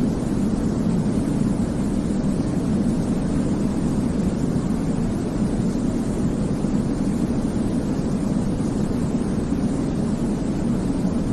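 Continuous sleep-aid white noise: an even, unbroken deep rushing sound, weighted toward the low end like a distant airplane-cabin rumble, with no changes in level or pattern.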